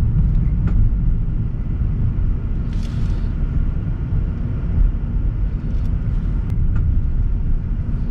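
Steady low rumble of a car's engine and road noise heard from inside the cabin while driving, with a short hiss about three seconds in.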